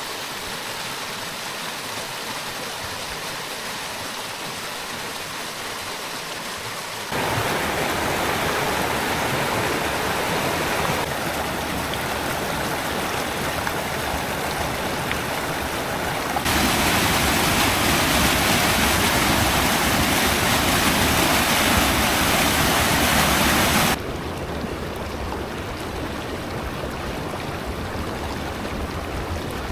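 Mountain stream rushing over rocks: a steady hiss of running water. It steps up sharply in loudness about seven seconds in and again about sixteen seconds in, then drops back suddenly about twenty-four seconds in.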